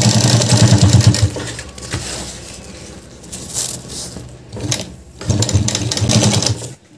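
Sewing machine stitching fast through waterproof bag fabric, sewing a strap down over a zip strip. It runs for about the first second, stops while the fabric is repositioned, then stitches again for about a second near the end.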